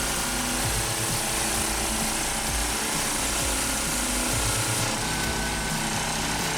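Small gas engine of a Stanley 2800 psi pressure washer running steadily under load.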